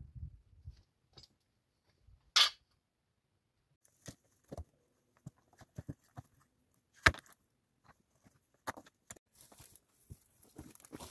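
Footsteps and hands on loose limestone rubble: scattered crunches and small stones knocking together, with a short scrape about two seconds in and a sharp stone-on-stone knock about seven seconds in. Near the end comes a longer rustling scrape as stones and dirt are shifted by hand.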